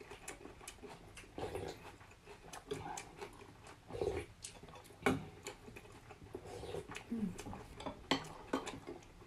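Eating at a table: spoons and chopsticks clicking against glass bowls, with soft sips of noodle-soup broth from a spoon, in short scattered sounds.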